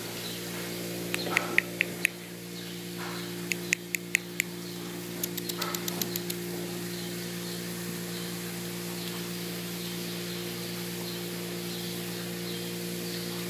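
Steady multi-tone hum of dairy milking equipment running, with three short clusters of sharp clicks in the first six seconds.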